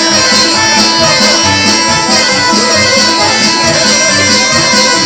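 Korg Pa-series arranger keyboard played live: a melody of held notes over its automatic accompaniment, with a steady beat pulsing in the bass.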